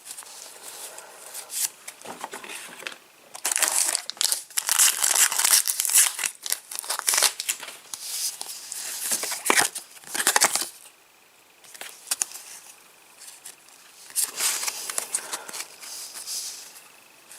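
Trading-card packet wrappers being torn open and crinkled by hand, in several bursts of crackling with a short lull in the middle.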